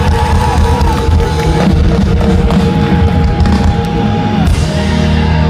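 Rock band playing live, loud: drums, bass and electric guitar with long held notes, the closing part of the song.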